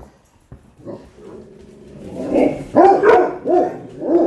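Dogs barking in a rapid run of short yips, about three a second, starting about two seconds in after a near-quiet first second.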